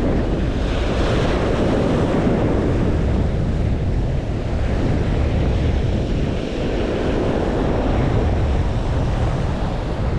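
Ocean surf washing on a beach with strong wind buffeting the microphone, a steady rushing noise with a heavy low rumble that swells slightly now and then.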